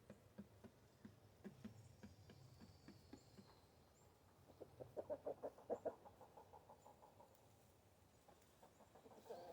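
Domestic chickens clucking faintly: a quick run of about eight short clucks a little before the middle and a few more near the end, with scattered soft taps between.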